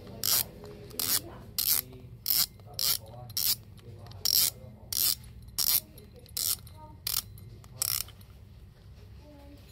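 Shimano Spheros SW spinning reel's front drag knob being turned, its drag clicker giving sharp single clicks about every two-thirds of a second. The clicks stop near the end.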